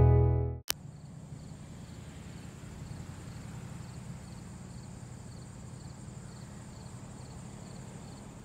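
Guitar intro music fades out in the first half second and ends in a click. Then quiet field ambience: a steady high insect buzz with a faint chirp about twice a second, over a low hum.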